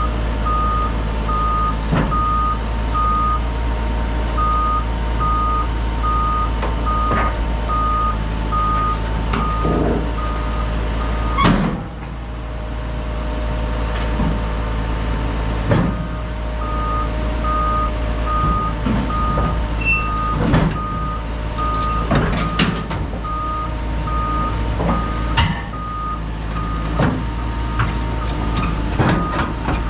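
Hyundai HX140AL excavator's diesel engine running under work, with its travel alarm beeping steadily as it tracks. The beeping stops for a few seconds after a loud knock about eleven seconds in and starts again near sixteen seconds, and there are scattered knocks and clanks throughout.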